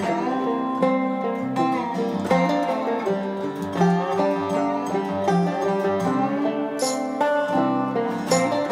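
Background music led by plucked string instruments, picking a steady run of notes.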